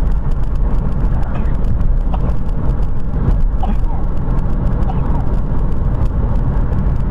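Steady road and wind noise of a car driving at highway speed, heard from inside the cabin, heavy in the low end.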